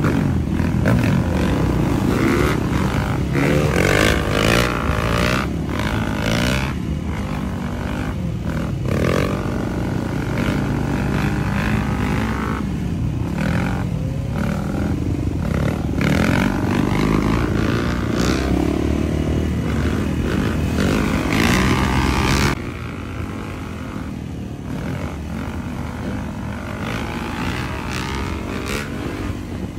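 Dirt bike engines revving up and down as riders hold wheelies, the pitch rising and falling with the throttle. The sound drops suddenly in level about two-thirds of the way through.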